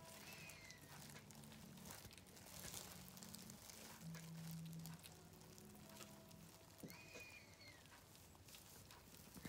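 Two faint, high calls from a young animal, each rising then falling, about six seconds apart, over soft rustling and a low hum.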